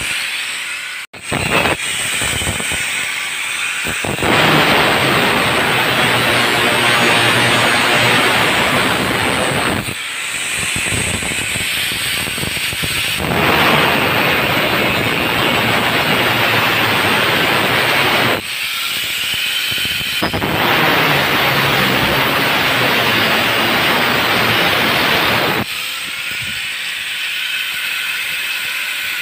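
Angle grinder with an abrasive cut-off disc cutting through a metal side-rail section. It makes three long gritty cuts of several seconds each, with the disc spinning freely and more quietly between them. The sound drops out briefly about a second in.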